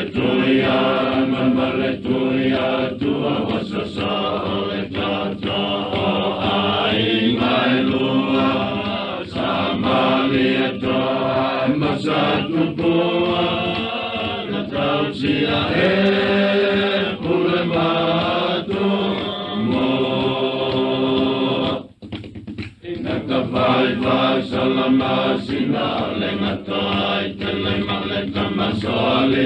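A group of voices singing a traditional Samoan song in long held phrases, with a brief break about three-quarters of the way through.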